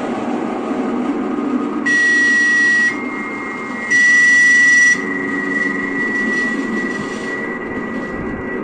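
Electronic soundscape made from NASA Voyager and Juno spacecraft audio data: a dense, steady hiss with low droning tones. It is broken twice by about a second of bright static with a steady high tone, which then lingers and slowly fades.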